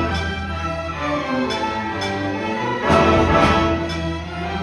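Student orchestra playing live: bowed violins and strings with brass, over a low held note, swelling louder about three seconds in.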